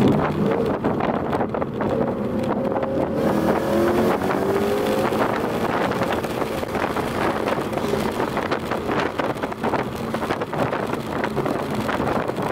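Ford Mustang GT's Coyote V8, breathing through longtube headers, pulling hard under acceleration, heard from inside the car with wind noise. The engine note climbs in pitch from a couple of seconds in.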